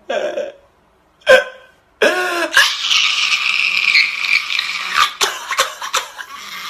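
A man crying loudly: a short sob at the start, a sharp gasping sob about a second in, then a long high wail from about two seconds on.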